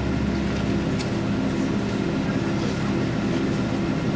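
A vehicle's engine running with a steady low drone and rumble, with a single short tick about a second in.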